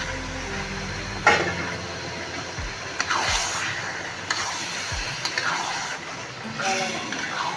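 Food being stirred in a pan, the spoon scraping the pan in separate sweeps every second or two over a faint sizzle. A steady low hum cuts off with a sharp knock about a second in.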